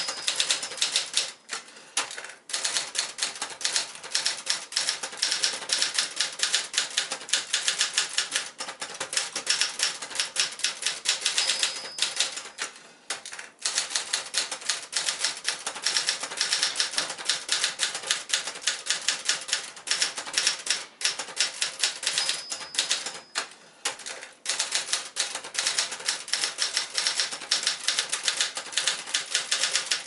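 Fast, steady typing on a 1974 Adler J5 manual portable typewriter: rapid clacking of the typebars striking the platen, broken by a few brief pauses.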